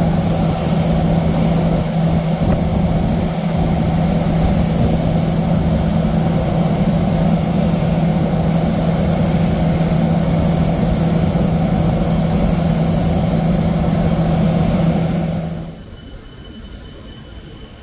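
Steady, loud drone of airliner jet engines on the apron during pushback, with a constant low hum under a broad rumble. Near the end it drops abruptly to a much fainter, distant jet sound with a thin high whine.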